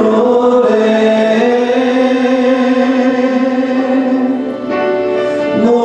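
Church worship singing of a praise song with instrumental accompaniment: a long held, wavering note, with a new phrase starting near the end.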